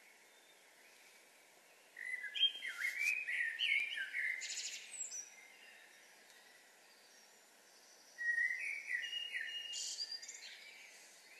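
A songbird singing two song phrases of about three seconds each, several seconds apart, each a quick run of varied whistled notes ending in higher, thinner notes, over a faint steady background hiss.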